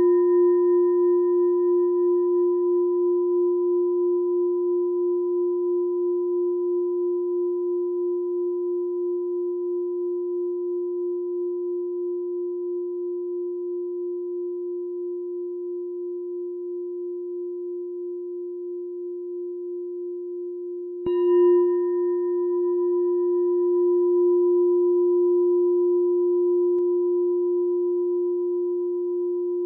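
A meditation bell rings on in one long, low, pulsing tone that fades slowly, and is struck once more about two-thirds of the way through, renewing the ring.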